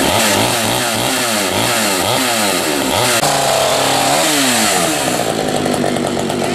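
Pioneer P-51 two-stroke chainsaw running, its throttle blipped so the engine revs up and down about twice a second, then held at a steadier speed near the end. The saw is running again after its pull-cord housing was fixed with a new bolt.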